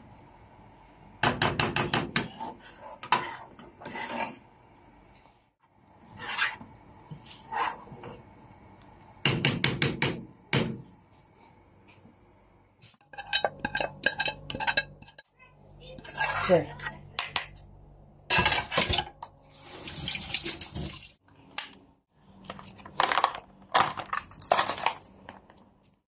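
A spoon stirring and scraping in a saucepan, with clinks of kitchen utensils against the pot, in repeated bursts separated by short pauses.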